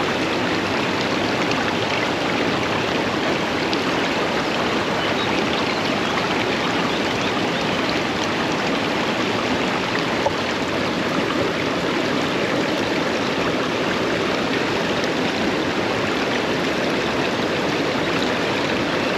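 Fast-flowing river water rushing steadily, with one brief knock about halfway through.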